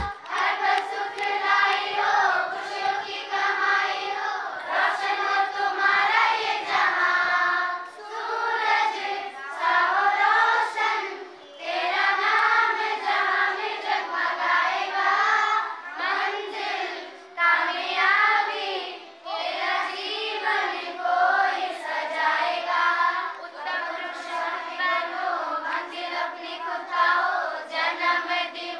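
A group of young girls singing a song together, unaccompanied, in phrases with brief pauses between them.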